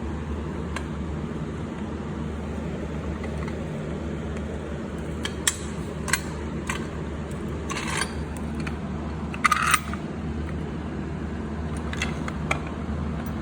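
A steady low mechanical hum with a scattering of short, sharp metallic clicks and two brief rattles in the middle stretch, then two more clicks near the end.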